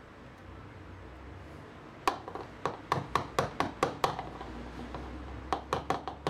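A batter-coated spoon knocked against the rim of a plastic mixing bowl to shake off soap batter: two quick runs of sharp taps, about five a second, the first about two seconds in and the second near the end.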